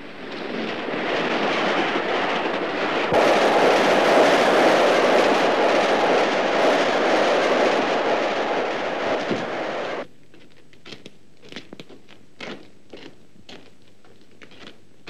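Steam express train rushing past at speed: a loud, steady roar that swells in, grows louder about three seconds in, and cuts off abruptly about ten seconds in. A few faint scattered knocks follow.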